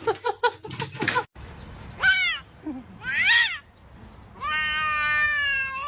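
Domestic cat meowing three times: two short rising-and-falling meows, then one long drawn-out meow held at a steady pitch near the end.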